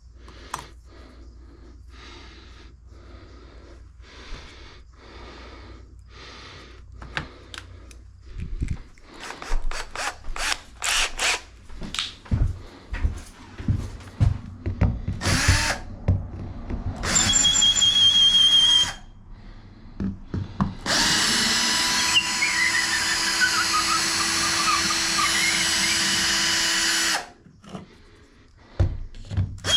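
Power drill running: a short burst, then a longer steady run of about six seconds with a tone sliding down partway through. Scattered knocks and clatter of work come before it.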